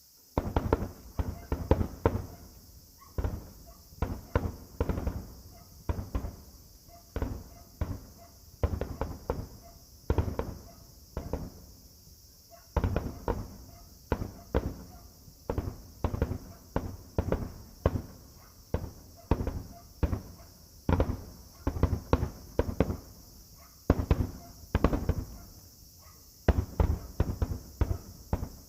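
Fireworks finale: a dense barrage of aerial shell bursts, booming one after another, often several a second, starting suddenly just after the start.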